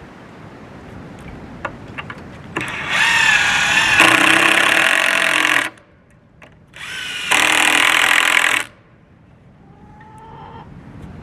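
Cordless drill driving screws into a wooden 2x4 door frame: two runs of the motor, the first about three seconds long with its pitch wavering at the start, the second about two seconds. A brief faint whir follows near the end.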